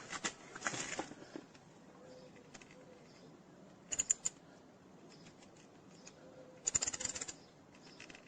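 Hand tap and tap wrench cutting a new thread in soft aluminium, turned slowly with oil. It gives short clusters of small metallic clicks and scrapes near the start, about four seconds in, and near the end.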